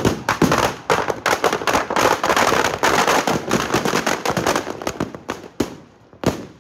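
Firecrackers packed inside a burning Ravan effigy going off in a rapid, dense crackle of bangs, which thins to a few separate bangs over the last second or so.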